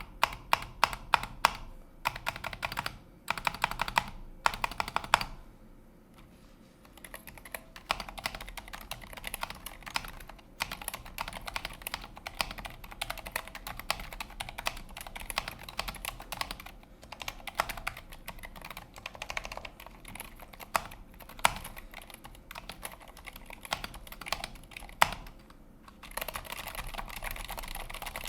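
Typing on a mechanical keyboard with Cherry MX Silent Black switches: a few short runs of quick keystrokes at first, then steady fast typing with an occasional louder key strike, easing off near the end.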